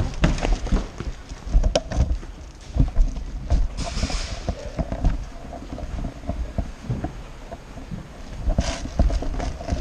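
Irregular knocks, thumps and sharp clicks of airsoft play, with a couple of short hissing bursts.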